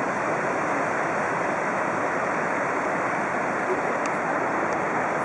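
Steady rushing of a large waterfall, Victoria Falls: the Zambezi pouring over the cliff edge into the gorge.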